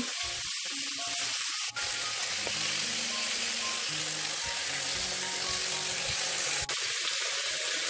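Chicken drumsticks sizzling steadily in oil in a frying pan as they brown and are turned over with chopsticks. Faint soft background music with held notes comes in from about two seconds in until near the end.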